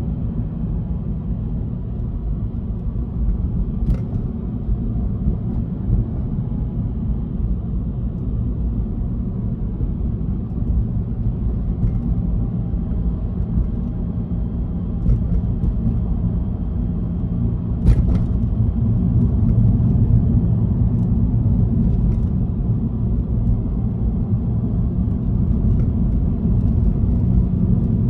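Subaru Legacy 3.0R's EZ30R flat-six engine pulling in second gear, heard from inside the cabin as a steady low drone mixed with tyre and road noise. The car is driven on the throttle alone, with no braking. The drone grows a little louder about two-thirds of the way through, and a couple of sharp clicks sound, one early and one just before the swell.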